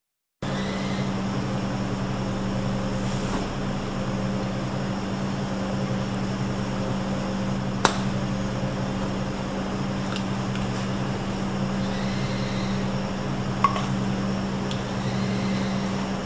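Steady low machine hum, like a kitchen ventilation fan, starting abruptly about half a second in. Two short sharp clicks cut through it, one about halfway and one near the end.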